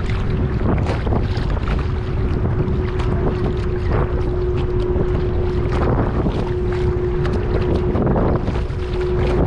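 Wind buffeting the microphone over choppy water slapping against the bow of a kayak, with a steady hum held at one pitch throughout.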